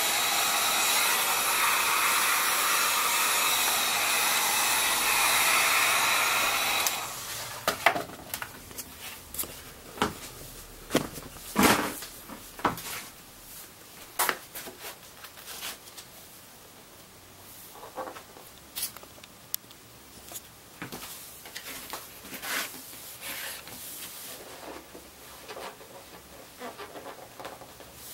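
Heat gun blowing steadily on a peeled-off fibreglass surfboard skin to soften and flatten it, shutting off about seven seconds in. It is followed by scattered clicks, knocks and rubbing as the stiff fibreglass sheet is handled and pressed back down onto the board by hand.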